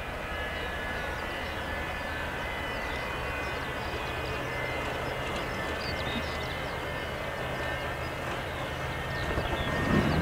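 Cessna Citation II's twin Pratt & Whitney JT15D turbofans running as the jet rolls along the runway at a distance: a steady low hum with a faint high whine, growing louder near the end.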